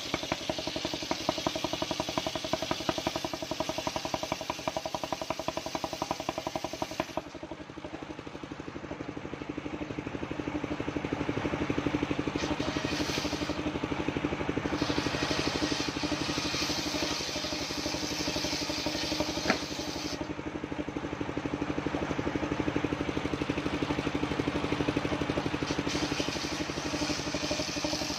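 Engine of a portable circular sawmill running steadily with a fast, even firing beat. Its note drops and changes about seven seconds in, then holds steady with a hiss that comes and goes on top.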